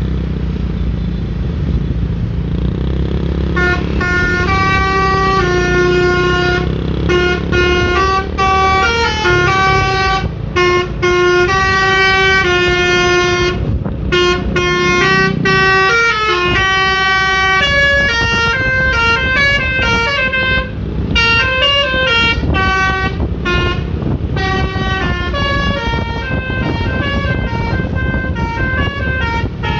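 Bus telolet air horn played by hand like a keyboard, sounding a tune of changing notes over the low rumble of the bus. The tune starts about three and a half seconds in and turns to quicker, shorter notes in the second half.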